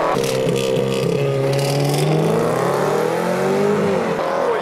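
A Range Rover Sport V8 running without catalytic converters and a Stage 2 VW Golf R accelerate hard side by side from a standing start. Their engine pitch climbs and then drops back with each upshift, and the Range Rover's exhaust is very loud.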